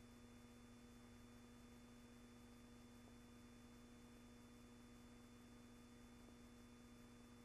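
Near silence: only a faint steady hum and hiss, with no sound of the scene.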